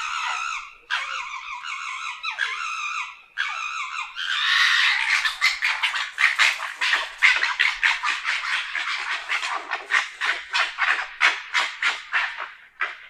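Fox calling: a few drawn-out harsh cries with short gaps, then from about four seconds in a fast run of short yelping calls, several a second, tailing off near the end.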